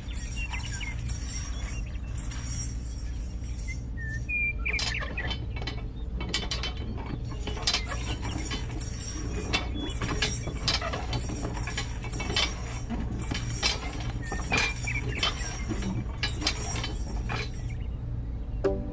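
Many quick mechanical clicks and clinks, ratchet-like and metallic, come in bursts over a steady low hum, starting a few seconds in and stopping just before the end.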